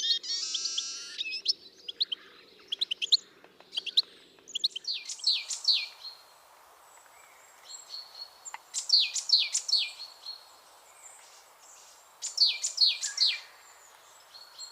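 Small birds chirping and singing in bursts of quick, high notes that sweep downward, with a new phrase every few seconds.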